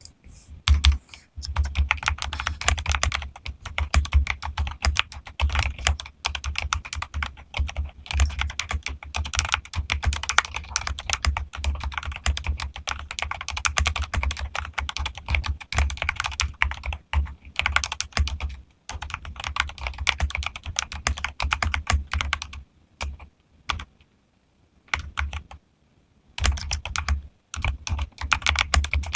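Fast, continuous typing on a mechanical keyboard: rapid keystroke clacks with a deep bottom-out, stopping briefly a few times.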